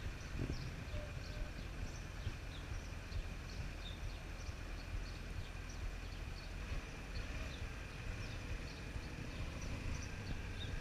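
Suzuki V-Strom 650's V-twin engine running at low speed with a steady low rumble, while birds chirp over it in many short, quick calls.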